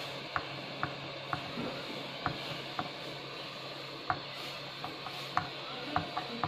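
Soldering iron tip tapping and scraping on the solder joints of a motherboard's underside: faint, irregular light clicks, roughly two a second.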